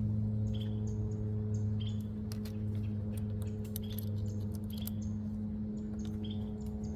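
A steady low hum runs throughout while small birds give repeated short, high chirps. A few light metallic clicks come about two to three seconds in, from an Allen key turning the bolts on an electric scooter's stem clamp.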